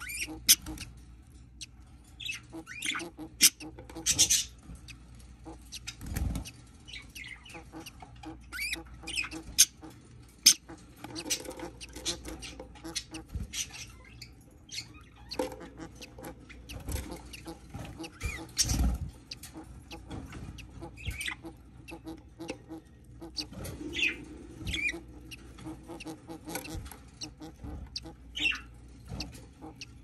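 Budgerigars in a wooden nest box: short chirps and squeaks scattered throughout, with clicks and rustling of the wood-shavings bedding as the hen shifts on the nest, and a couple of low bumps.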